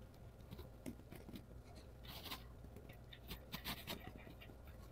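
Faint clicks and scrapes of a brass threaded nipple being screwed by hand into a brass gas valve, metal on metal.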